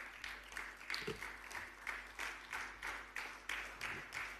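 Audience clapping in unison, about three claps a second.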